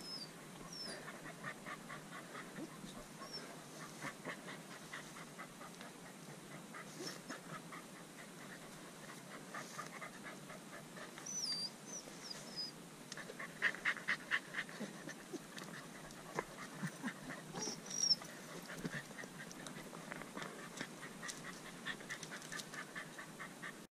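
A dog panting fast and steadily. A few short high chirps sound now and then.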